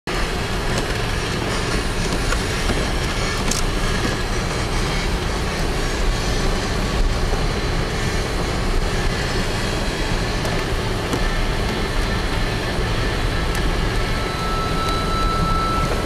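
Steady in-cabin rumble of a four-wheel-drive vehicle driving along a snow-covered road, engine and tyre noise heavy in the low end.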